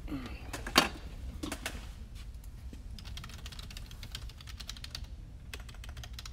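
Typing on a computer keyboard: rapid runs of keystrokes, with one sharper, louder click just under a second in and a burst of quick keystrokes in the middle.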